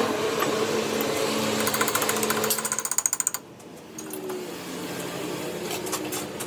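A power tool runs with a rapid, even hammering rattle, then stops abruptly about three and a half seconds in, leaving a fainter steady hum.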